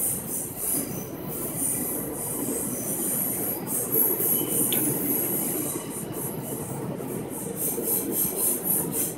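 MTA VacTrak track-vacuum train running, a steady dense rushing noise with a high hiss, as it sucks debris out of the subway storm drains.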